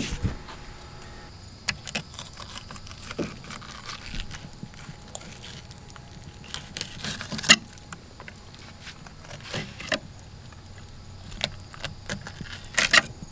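Fillet knife working a lionfish on a wooden cutting board: scattered light clicks and taps as the blade cuts and scrapes, with one sharper knock about halfway through and a small cluster of clicks near the end.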